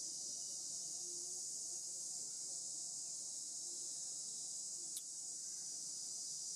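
Steady, high-pitched drone of an insect chorus, with one short click about five seconds in.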